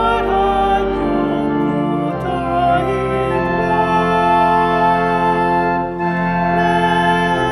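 Church pipe organ playing a slow hymn in held chords, the chord changing about two seconds in and again around six seconds.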